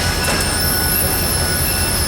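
Train rolling on the rails with a steady low rumble and a wavering high-pitched wheel squeal.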